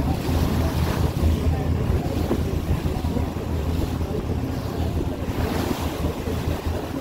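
Passenger ferry under way: the engine runs with a steady low hum while water rushes past the hull and wind buffets the microphone.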